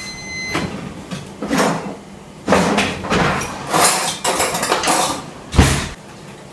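A run of knocks and clatters as a wooden kitchen drawer is pulled open and things are handled, ending in one heavy thump near the end.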